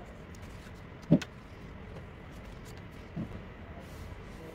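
Two dull knocks on the tabletop while the papers are handled: a sharp one about a second in and a softer one about three seconds in, over a steady low hiss.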